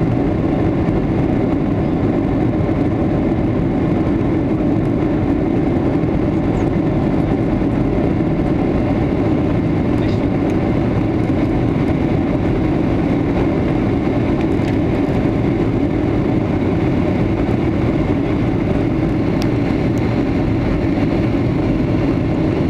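Steady cabin noise inside a Boeing 757-200 climbing after take-off: engines at climb power and rushing air blend into an even, mostly low-pitched noise that does not change.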